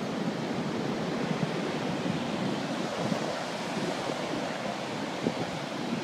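Pacific Ocean surf: a steady wash of breaking waves, with wind on the microphone.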